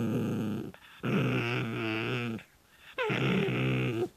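Mame Shiba Inu dog giving long, drawn-out vocalizations with a wavering pitch: the end of one call, then two more of about a second and a half each, with short pauses between. This is the dog's odd, excited bark during play.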